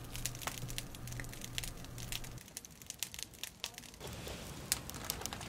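Campfire of charcoal and wood crackling in a tabletop grill: an irregular scatter of sharp pops and snaps, over a low steady hum that stops about halfway through.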